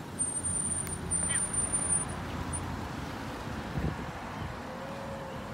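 A small SUV driving off across a parking lot, with road traffic around it, heard as a steady low rumble; a bump from the handheld phone comes about four seconds in.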